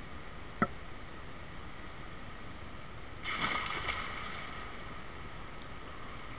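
Splashing of a swimmer arriving at the pool wall about three seconds in, fading over about a second, over the steady hiss of an indoor pool. A single sharp click about half a second in.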